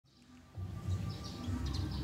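Background music with a low pulsing beat that starts about half a second in, with short high chirps of birds over it.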